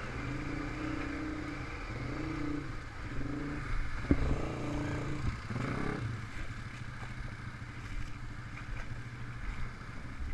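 ATV engine, a Honda TRX500 Foreman, revving in repeated surges as it pushes through standing water, with splashing and a sharp knock just after four seconds. After about six seconds the engine settles to a quieter, steadier run.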